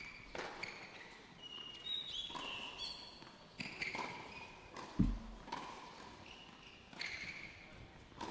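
Tennis ball being struck by rackets and bouncing on a hard court during a doubles rally: a series of sharp knocks a second or so apart, with a heavier thump about five seconds in.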